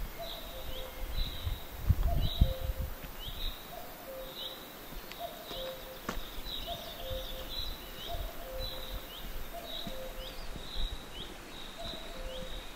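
A bird calling: short high chirps repeated nearly twice a second, with short lower notes between them. A few low thumps about two seconds in.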